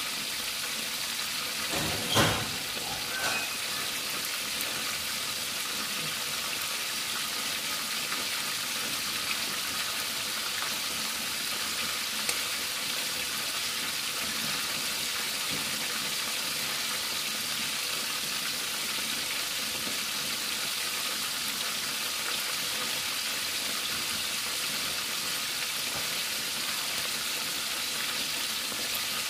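A whole tilapia deep-frying in hot oil: a steady crackling sizzle, with a single louder crack about two seconds in and a smaller one a second later.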